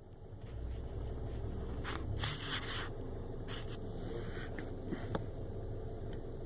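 Cabin air filter being slid into its plastic housing: several short scrapes and rustles of the filter frame against the housing, a sharp click near the end, over a steady low rumble.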